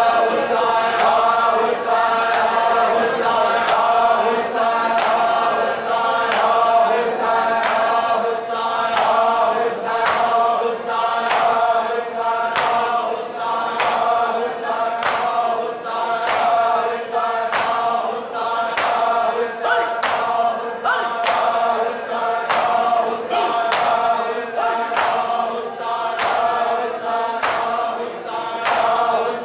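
A group of men chanting a nauha lament in unison, with steady chest-beating slaps of matam (palms striking bare chests) about once a second.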